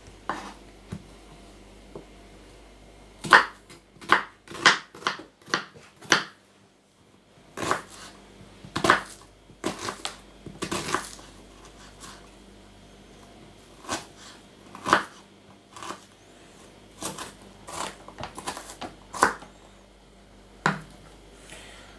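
Kitchen knife chopping an onion on a wooden cutting board: irregular sharp knocks of the blade through the onion onto the wood, some in quick runs, with pauses between.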